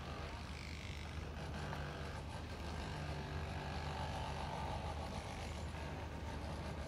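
Steady low hum of a large motor yacht's engines running at slow manoeuvring speed, over a faint hiss of background noise.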